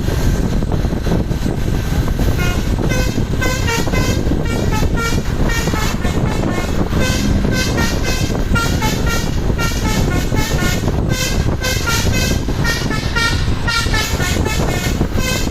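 Telolet basuri musical bus horn playing a fast, repeating melody of short high notes over the steady rumble of bus engines and road noise.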